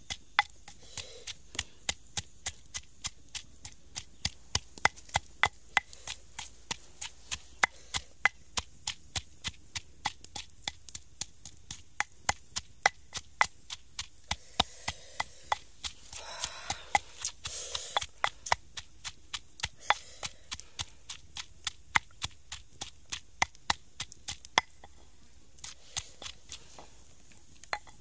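A long wooden pestle pounding chilies and garlic for chili sauce in a mortar: a steady run of sharp knocks, about three a second.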